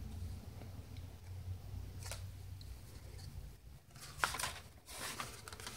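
Loose sheets of dyed paper being handled on a wooden table: a brief soft rustle about two seconds in, then louder rustling and sliding of the pages near the end, over a faint low hum.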